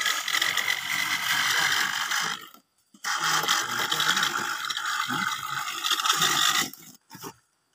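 Plywood profile template scraped along wet mortar to shape a moulding: a rough, grating scrape in two long strokes, with a short break about two and a half seconds in, stopping shortly before the end.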